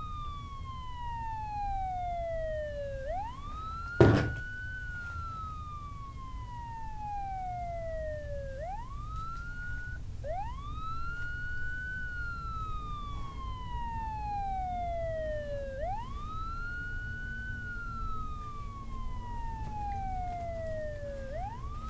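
A wailing siren whose pitch rises quickly and then falls slowly, repeating about every five and a half seconds over a low rumble. A single sharp knock comes about four seconds in.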